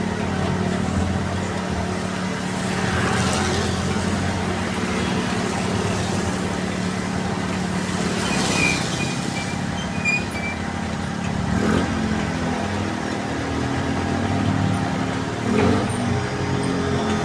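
A diesel engine of the loading machinery running steadily at a constant speed, with a couple of brief hissing swells and short knocks over it.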